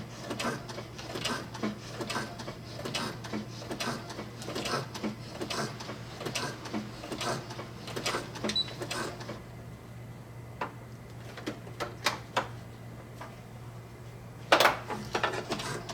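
Brother SE-400 sewing machine stitching through thick nylon strapping, its needle strokes clicking in a slow, even rhythm over a steady motor hum. About nine seconds in the stitching stops, leaving a few scattered clicks, then a sharp knock near the end as the stitching starts again.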